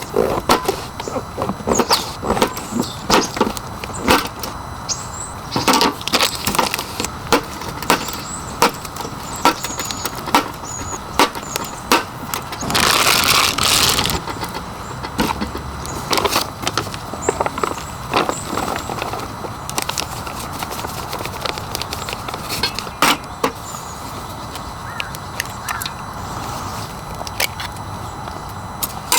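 Steady rain with scattered clicks, knocks and clatter of camping gear being handled, and a short rush of hiss about thirteen seconds in.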